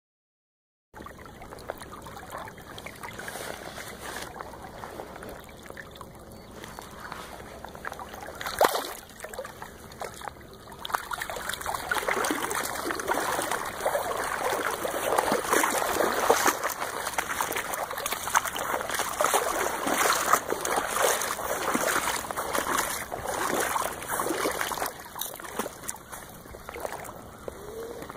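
River water splashing and trickling close to the microphone, starting about a second in and growing louder and busier about halfway through.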